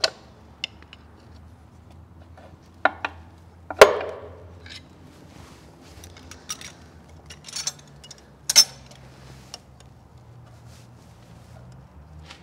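Hand tools clinking and scraping on metal as a CAT C15 front main seal is picked and pried out around the crankshaft nose. Irregular clicks and clanks, the loudest a sharp clank about four seconds in that rings briefly.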